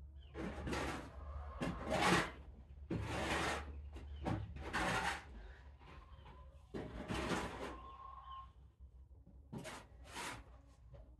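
Young kittens scrabbling and crawling as they try to walk: repeated rustling scratches, about a dozen short bouts, over a low steady hum.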